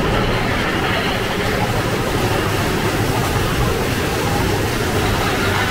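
Mine-train roller coaster cars running along their track, heard from on board: a loud, steady rumble and clatter.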